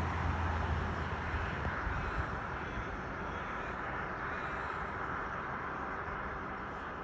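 Steady rumble of a distant aircraft engine, with a low hum in the first two seconds, slowly fading.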